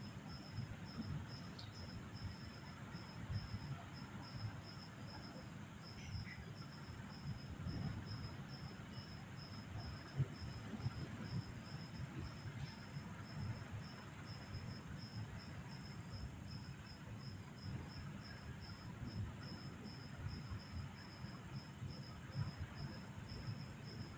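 Crickets chirping steadily at night, a high rhythmic pulse that never stops, over a louder low rumbling noise from the storm.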